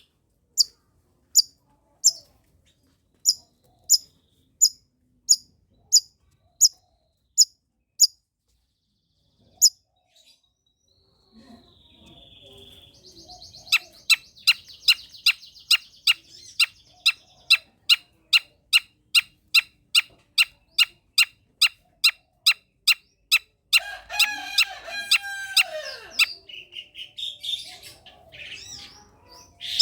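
Long-tailed shrike (cendet) singing. First comes a string of sharp, high chirps about one and a half a second; after a short pause it goes into a fast run of repeated notes, about three a second, with a harsher, rasping phrase toward the end.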